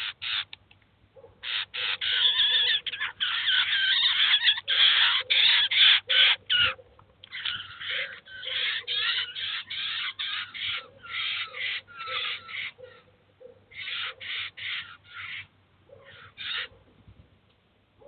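Eurasian jays giving a rapid series of harsh, rasping calls. The calls are loudest and most continuous in the first several seconds, then come in shorter bouts with gaps between them.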